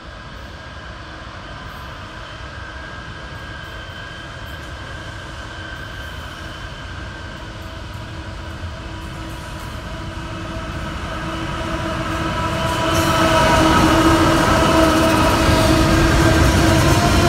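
Diesel freight train led by Pacific National locomotives approaching and passing close by. The engine drone, with a steady pitched note, grows gradually louder and is loudest from about two-thirds of the way in as the locomotives go past.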